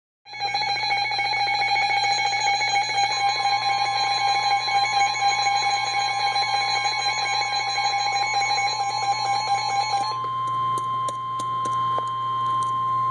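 A weather radio's alert alarm sounding in a rapid pulse, joined about three seconds in by a single steady tone near 1 kHz, typical of the NOAA Weather Radio 1050 Hz warning alarm tone that precedes a warning message. The pulsing alarm cuts off about ten seconds in, leaving the steady tone alone over a low hum.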